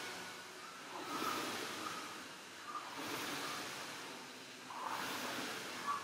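Air-resistance rowing machine's fan flywheel whooshing with each drive stroke: a surge of rushing air about every two seconds, three times, fading between strokes.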